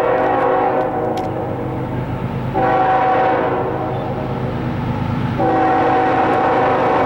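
Diesel locomotive air horn sounding in three blasts: one fading out about a second and a half in, a second starting about two and a half seconds in, and a third starting near the end and held. The low rumble of the passing locomotives runs underneath.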